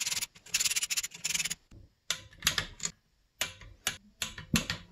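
Ratchet wrench clicking in quick runs as nuts are run down on the intake boot mounting studs of a two-stroke snowmobile engine, followed by a few shorter sets of clicks and clacks.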